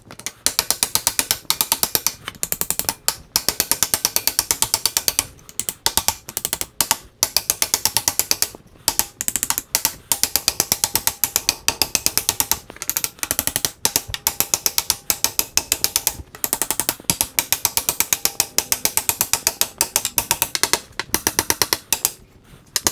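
Hand hammer rapidly tapping the wooden felloes of a wagon wheel to seat them on the spoke ends. Quick light blows come in runs of a second or two, with brief pauses between runs.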